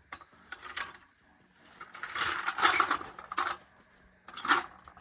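Trolley jack being moved into place: metal clattering and ratcheting clicks in three short spells.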